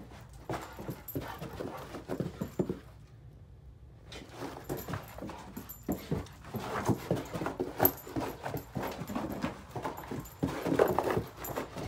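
A Great Dane moving about on a carpeted floor: irregular soft knocks and thuds, with a brief lull about three seconds in and the busiest, loudest stretch near the end.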